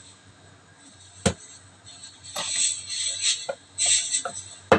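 Meat-tenderizer mallet knocking on a crab claw on a wooden cutting board to crack the shell: several sharp knocks with crackling of the shell between them, the loudest near the end.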